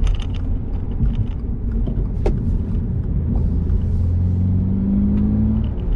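Engine and road noise heard from inside a moving 2022 Subaru BRZ: a low rumble from the 2.4-litre flat-four, whose note holds steady and rises slightly near the end, with a short falling squeak about two seconds in.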